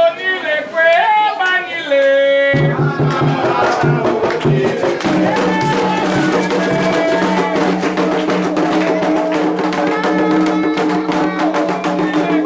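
Afro-Brazilian Candomblé ritual music: a sung chant, then, from about two and a half seconds in, an abrupt change to dense hand-drum and percussion playing over steady held notes.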